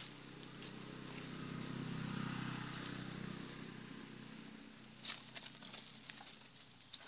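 A motor vehicle's engine hum that swells over about two seconds and then fades, as it passes. From about five seconds in, dry leaves crackle sharply as monkeys scuffle over the leaf litter.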